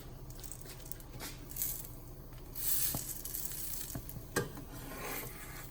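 Naan flatbread cooking in a hot, dry skillet: a faint, steady sizzle that swells louder about halfway through, with a couple of light clicks.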